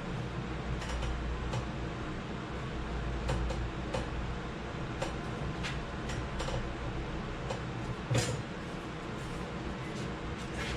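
Irregular light metal taps and clicks from hand tools working a small sheet-steel piece, about ten over several seconds with the loudest clank about eight seconds in, over a steady low shop hum.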